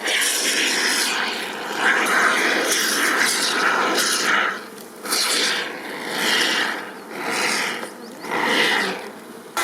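Bee smoker bellows being squeezed, puffing out smoke in rushing bursts. The bursts come closer together at first, then settle into four even puffs about a second apart.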